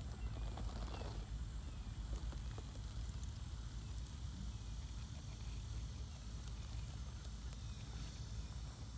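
Tyres of an RC rock crawler creeping slowly down a rock face, faint scattered clicks and scrapes over a low steady rumble.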